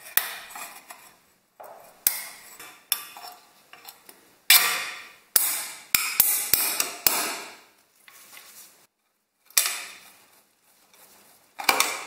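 A metal tool knocking and scraping against the fan heater's sheet-metal panels while the plastic insulating sleeves are worked out of them. There are a dozen or so sharp clanks at uneven intervals, each ringing out briefly.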